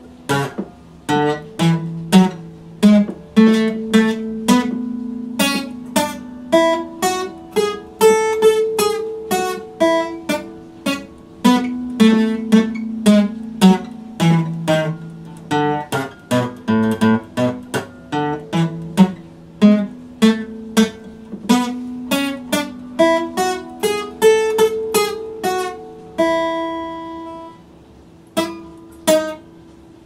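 Epiphone acoustic guitar strummed and picked in a steady run of chords. Near the end one chord is left to ring and fade for about two seconds before the playing picks up again.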